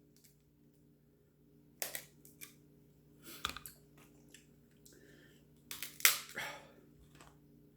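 Crab leg shells cracking and snapping as they are broken open, in a few sharp cracks about two, three and a half and six seconds in, the last the loudest.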